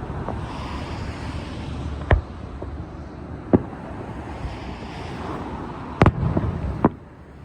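Fireworks display: sharp bangs of bursting aerial shells, about four in all, the loudest near the end, over a continuous rumble and crackle of other bursts.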